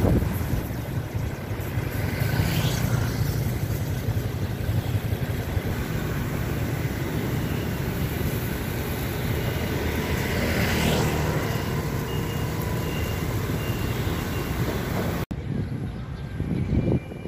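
Road traffic going by: a steady low rumble of motorbikes and cars, with two vehicles swelling and fading as they pass, a few seconds in and about ten seconds in. The sound drops off suddenly about fifteen seconds in, where it turns quieter.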